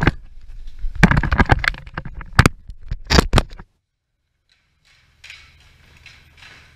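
Loud close-up knocks, scrapes and rustling of a GoPro being handled and set down, stopping abruptly about three and a half seconds in. After a second of silence, fainter rustling of hockey goalie gear being pulled off over a low room hum.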